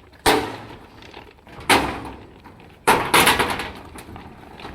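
Three sharp knocks during rebar work, each with a short ringing tail, about a second and a half apart; the third comes as a quick cluster of strikes.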